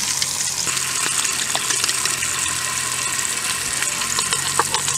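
Bacon and beaten egg sizzling in frying pans on a two-burner camping gas stove, a steady hiss. A few light clinks near the end come from a fork scraping the last of the egg out of a plastic bowl.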